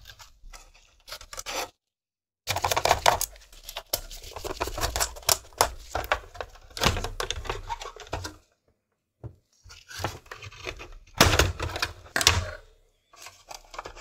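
Xbox One S motherboard, metal shield and plastic chassis being handled and lifted apart by hand: irregular clattering, scraping and knocking of plastic and metal parts, broken by two short silent gaps.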